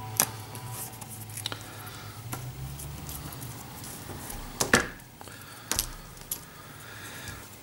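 Thick cardboard game tokens being popped out of a die-cut punchboard and set down on a tabletop. There are a handful of small, sharp clicks and taps, the loudest a little under five seconds in.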